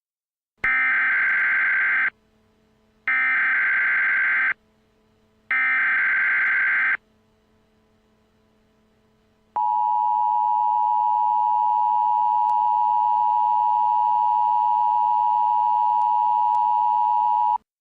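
Emergency Alert System tones: three short bursts of SAME header data with a harsh, buzzy warble, then the EAS attention signal, a steady two-tone beep held for about eight seconds, opening a tornado warning.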